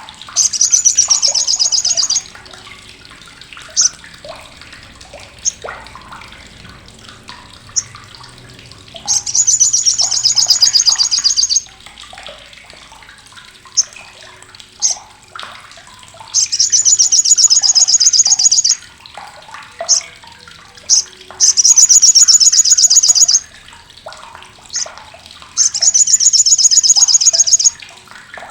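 Sogok ontong (sriganti), a small sunbird-family songbird, giving its crecetan: loud, harsh, sharp bursts of very rapid high-pitched chatter, each about two seconds long, five times, with single sharp chips between the bursts.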